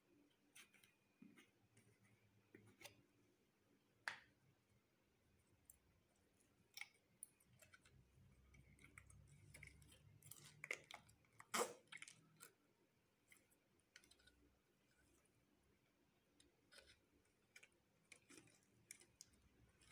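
Slime being mixed by hand, giving quiet scattered clicks and small pops at an irregular pace. The loudest pops come about four seconds in and again a little past the middle.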